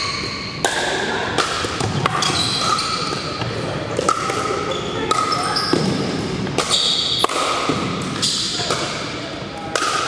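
Pickleball paddles hitting a hard plastic ball again and again in rallies, sharp pops at irregular intervals echoing in a large gym, mixed with short high sneaker squeaks on the hardwood floor.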